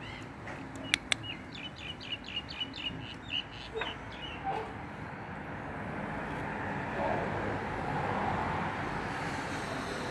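Two sharp clicks, then a quick run of short, high chirps, about five a second, from a small bird. From about six seconds in, a steady rushing noise swells up underneath.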